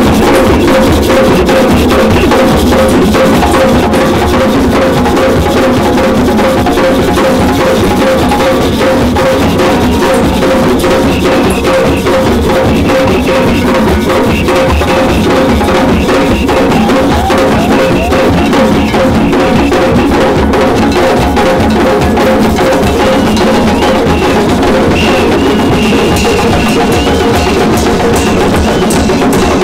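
Drum circle: many hand drums playing together in a fast, steady rhythm, with a pitched note sounding steadily above the drumming.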